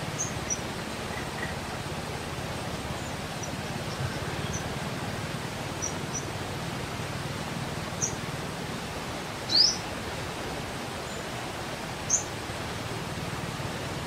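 Small birds giving scattered short, high chirps over a steady outdoor hiss; the loudest is a quick rising chirp about two-thirds of the way through, with another shortly after.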